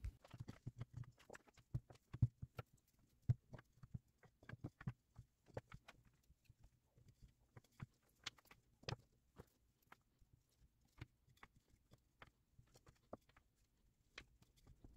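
Small end-grain strips of teak and imbuia being picked up, set down and butted against each other by hand: a quiet, irregular series of light wooden clicks and knocks, coming thickly in the first half and more sparsely later.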